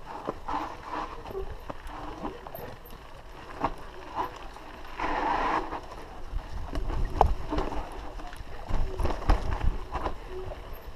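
Mountain bike ridden down a dry dirt trail: tyres scrabbling over dirt and roots, the bike rattling and knocking over bumps, with a longer scraping burst about five seconds in. Wind rumbles on the microphone in the second half.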